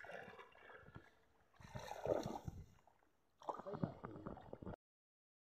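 Water sloshing and splashing in pond shallows as a fishing net is hauled in, in three short bouts, with voices in the background. The sound cuts off abruptly near the end.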